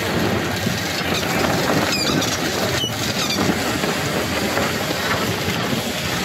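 Steady rush of wind and water aboard a sailing ship under way in a strong wind.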